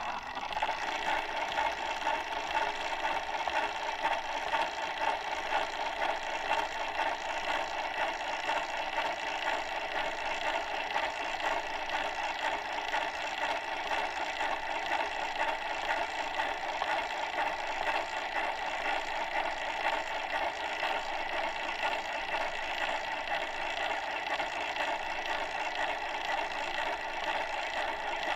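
Needle of a hand-cranked phonograph scratching and crackling in the groove of a spinning record, a steady surface noise with no music.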